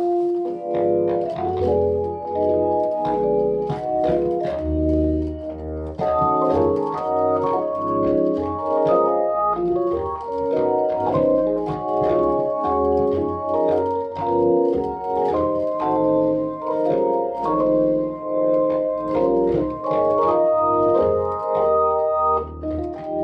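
Hammond XK1 combo organ playing a tune: sustained chords with a melody on top, and held low bass notes from the Studiologic MP-117 MIDI bass pedals coming and going underneath.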